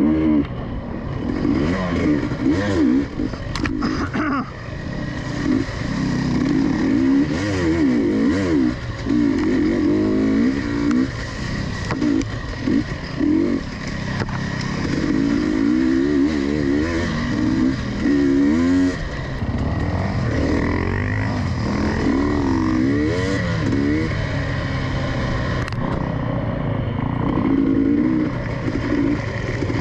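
2022 GasGas EC250 two-stroke enduro engine revving up and down again and again as the bike is ridden along a dirt trail, with a few short knocks and clatter from the bike.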